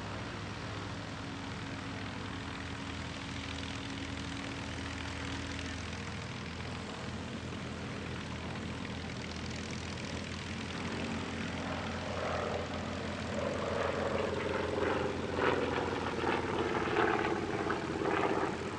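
Propeller engines of two aerobatic monoplanes, a CAP 232 and an Extra 300L, flying in formation. A steady drone grows louder and climbs in pitch over the last third as the aircraft come closer and manoeuvre.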